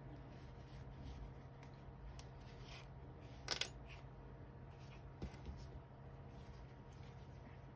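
Faint rustling of fingers handling a cotton crochet piece and pulling yarn tails through with a needle. A brief louder rub about three and a half seconds in, and a couple of soft ticks a little later, all over a low steady hum.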